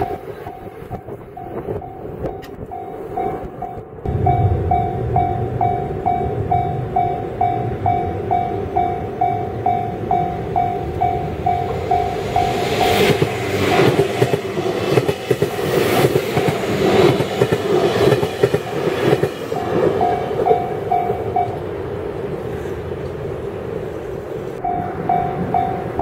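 A JR Kyushu electric commuter train passes close by, its wheels clicking rhythmically over the rail joints. A level-crossing warning bell rings in fast, even pulses, drops out for a few seconds near the end, then starts again.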